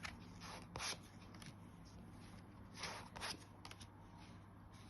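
Tarot cards being handled: a few faint, short swishes of cards sliding and turning, two of them close together about three seconds in.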